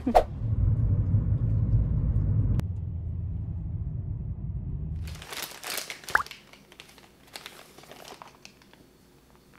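A low, even rumble for about five seconds that cuts off abruptly. It is followed by quieter rustling and small clicks as food is handled on a plate on a tray.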